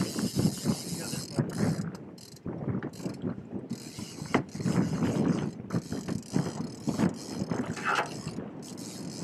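Fishing reel being cranked hard against a heavy hooked paddlefish, a rapid mechanical ratcheting and clicking. Under the strain the reel now and then slips and gives back a little line.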